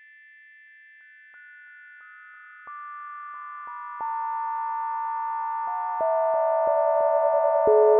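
Pure sine tones of a synthesized bell sound added one at a time, each lower than the last, about every half second, building into a sustained chord that grows louder with each new tone: the bell's partials sounded one by one to lay out its spectrum.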